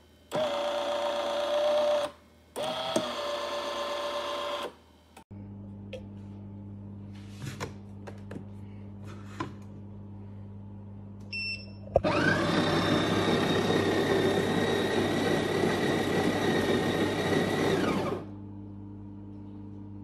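Café Affetto automatic espresso machine running: a motor whirrs with a steady whine, cutting out and restarting twice in the first few seconds. A low steady hum and a few light clicks follow, then a much louder run of the machine, with a whine that rises as it starts, lasts about six seconds before dropping back to the hum.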